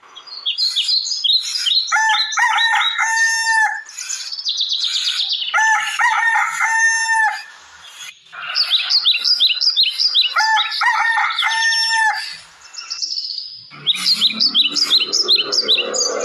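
A rooster crows three times, each crow held about a second and a half, over birds chirping busily: the sound of daybreak.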